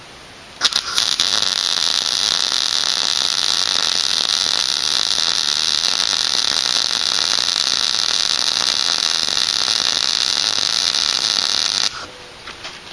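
MIG welder running one continuous weld bead on a seat bracket: a steady, loud sizzling hiss that starts about a second in and stops shortly before the end.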